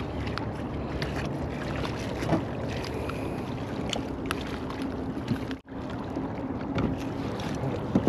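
Steady wind rushing on the microphone, with a few faint clicks and rustles of handling. The sound drops out for an instant a little past halfway.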